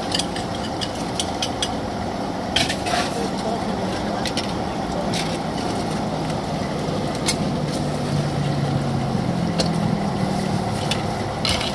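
Steady rushing roar of gas burners firing under a row of clay-pot stoves, with sharp metal clinks of aluminium pot lids and pots being lifted and set down now and then.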